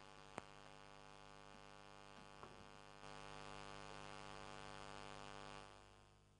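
Near silence with a faint, steady electrical mains hum, a small click about half a second in; the hum fades away near the end.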